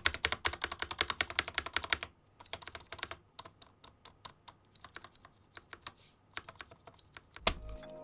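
A keyboard spacebar keycap on its stabilizers being pressed again and again: a quick run of clicks for about two seconds, then slower, quieter taps.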